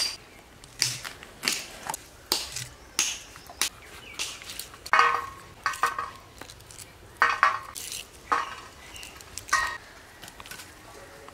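Vegetables being cut and handled by hand: a string of sharp, crisp cuts and knocks about two a second, some with a short metallic clink of utensils.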